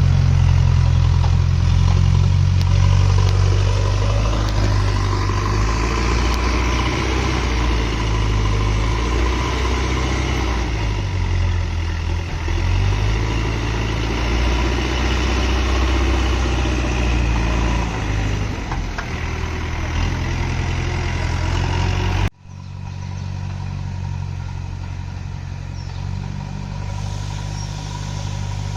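Diesel engine of a JCB backhoe loader running and changing speed as it works. About three-quarters of the way through the sound cuts off abruptly and picks up again as a steadier, somewhat quieter engine.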